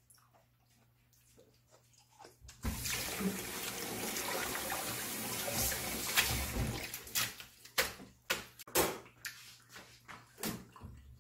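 Kitchen tap turned on about two and a half seconds in, running into a plastic basin as napa cabbage leaves are rinsed under the stream. The water stops after about five seconds, followed by a few splashes and knocks as the leaves and a bowl are handled in the sink.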